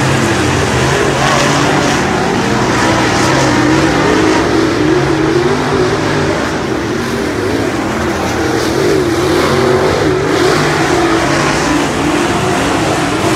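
Several steel block dirt late model race cars' V8 engines running together on the track, their pitch rising and falling as they rev and lift around the oval.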